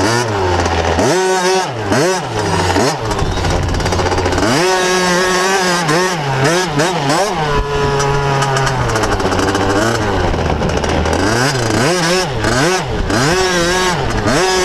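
Motocross bike engine revving up and down over and over as the rider works the throttle through the track, the pitch climbing and dropping every second or so, held steady briefly around a quarter and halfway in.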